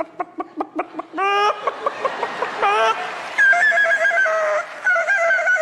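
A young girl imitating a rooster with her voice: a run of quick clucks broken by short rising calls, then a long, wavering crow from about three and a half seconds in.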